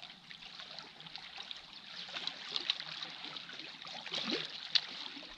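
Sea water lapping and trickling among shoreline boulders: a steady wash with small splashes and crackles, and one brief sharp tick near the end.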